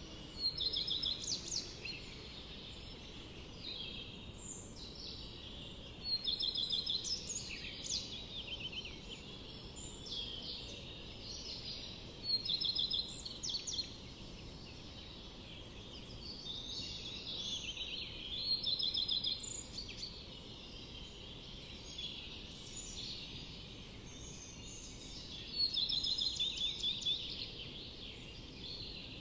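Songbirds singing in a forest, with high, rapid trilled phrases repeating every few seconds over a steady low background noise.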